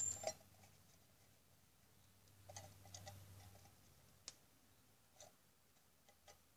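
Faint, scattered clicks and taps of pliers and copper wire against a tin can as the wire handle is twisted tight, with near silence between them; one sharper click about four seconds in.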